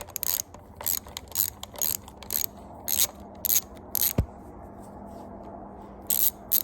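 Hand socket ratchet clicking in short runs as valve cover bolts are loosened, about two to three clicks a second. It pauses for a couple of seconds, with one low knock, then resumes near the end.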